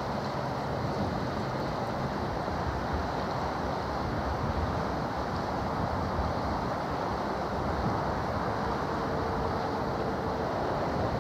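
Steady low rumble and hiss of a large cargo ship passing, with water wash and wind on the microphone. A faint steady tone sounds for about two seconds near the end.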